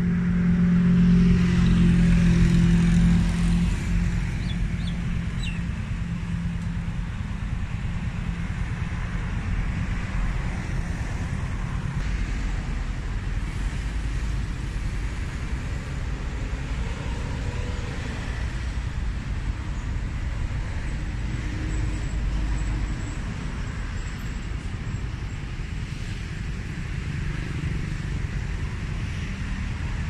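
Road traffic rumble. A motor vehicle's engine hum is loudest in the first few seconds, then fades, leaving an even low traffic rumble.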